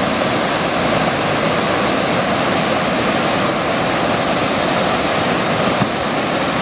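Whitewater of a fast river's standing surf wave rushing steadily, one continuous dense noise.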